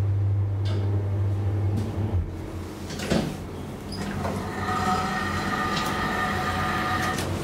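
1974 DEVE hydraulic elevator: the steady hum of its pump motor stops about two seconds in and a click follows. After a button on the car panel is pressed, a steady whine sounds for about three seconds and cuts off abruptly.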